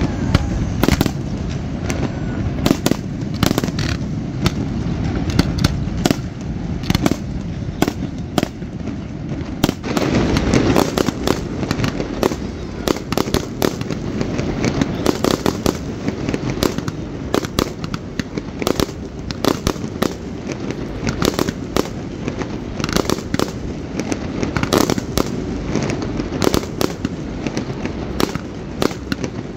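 Fireworks display: a rapid, dense barrage of shell bursts and crackle over a continuous low rumble, heaviest about ten seconds in.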